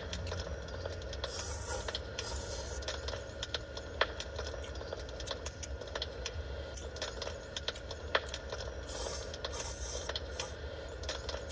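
Crackling of a recorded wood fire in a fireplace: irregular sharp pops and snaps over a steady low hum, with two short hissy rushes, one early and one near the end.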